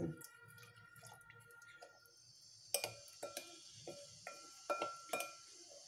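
Light, irregular clinks of a steel spoon knocking against a glass mixing bowl while semolina and water are stirred, starting a little under three seconds in, some of them ringing briefly.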